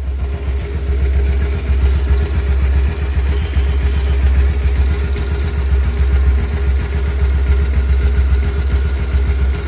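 Motorcycle engine running steadily at low revs, an even rapid pulse with no revving up or down.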